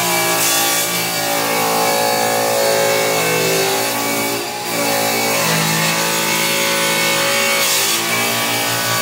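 Table saw ripping through a painted wooden raised-panel door: the blade's steady whine and cutting noise, its pitch shifting as it loads, with a short dip about halfway through.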